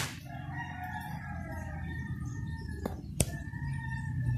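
Plastic blister packs of parts being set down on a table, with two sharp clicks close together about three seconds in, over a steady low background hum and faint wavering tones.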